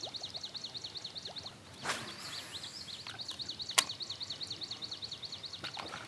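A bird's high, rapid trill of repeated chirps, about seven a second, which pauses briefly about a second and a half in and then resumes. Two sharp clicks come through, one about two seconds in and one near four seconds.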